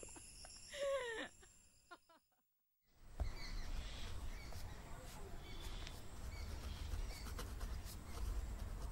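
A brief voice sound in the first second, then dead silence, then from about three seconds in a steady low rumble of background ambience with faint, repeated bird chirps.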